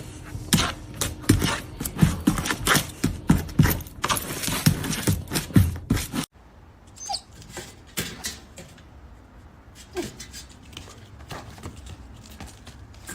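A dog's sounds over a fast run of sharp clicks and knocks. The sound cuts off suddenly about six seconds in, leaving only quieter, scattered clicks.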